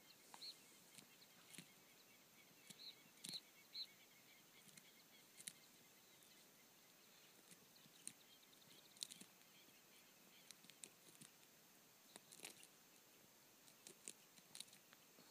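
Quiet open-air ambience with scattered faint ticks and rustles as a peregrine falcon plucks and tears at its prey. A few short, high bird chirps sound in the first four seconds.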